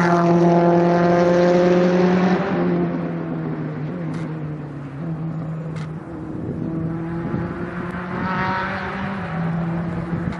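British Touring Car Championship race car engine running at steady revs, loud at first, then fading after about two seconds and swelling again near the end. Two short clicks come in the middle.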